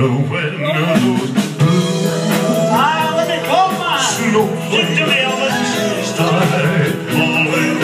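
Live band music with two male singers singing a duet into handheld microphones, heard from the audience in a reverberant hall.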